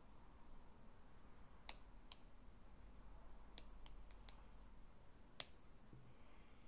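Scissors snipping thin leather: about seven short, sharp snips at irregular intervals.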